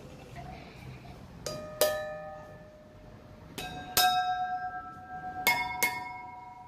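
Small fixed church bells struck in three quick pairs, each stroke ringing on. Each pair sounds higher in pitch than the one before, rising through the bells tuned E-flat, F-sharp and B in the fifth octave.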